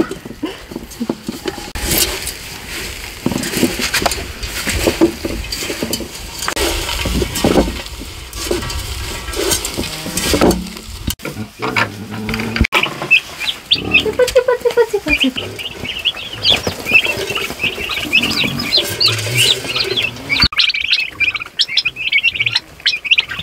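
A goat eating noisily from a metal pot, with crackling and clicking chewing sounds. Later, young turkey poults peeping: scattered high cheeps at first, a dense chorus of them near the end.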